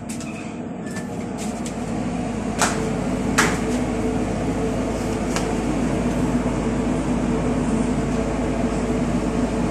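Engine room machinery running with a steady drone and hum, growing louder over the first couple of seconds. Two short clicks come about two and a half and three and a half seconds in.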